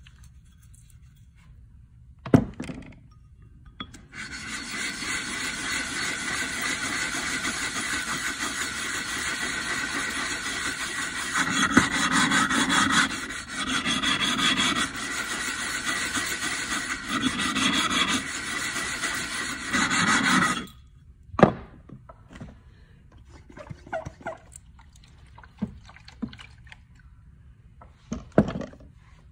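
Grooved lapping plate rubbed back and forth over a wet sharpening stone for about sixteen seconds, a steady gritty scraping that swells with each stroke in its second half: the stone's face is being flattened. A few short sharp sounds come before and after it.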